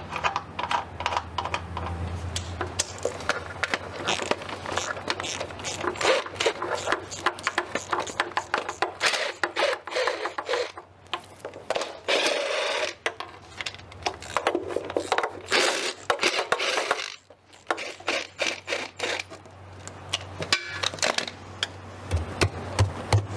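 Metal hand tools and bolts clinking, tapping and scraping against the engine during oil pan removal, a dense run of short sharp clicks and knocks with a few brief pauses.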